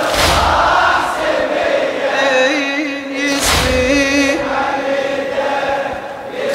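A crowd of men chanting a latmiya mourning refrain in unison with the reciter's sung voice. Loud collective chest-beating strikes land about every three seconds and ring in the hall.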